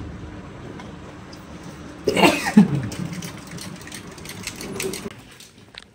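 A short, loud sound from a person's voice about two seconds in, falling in pitch, with a fainter one near the end, over a low steady hum.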